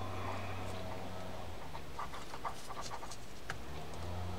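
A few faint light clicks of small metal parts as the side plate of a Pflueger Akron bait casting reel is lined up and fitted back on by hand, about two to three and a half seconds in, over a steady low hum.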